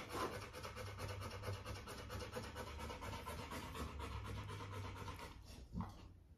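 Rottweiler puppy panting rapidly and evenly, fading out about five seconds in.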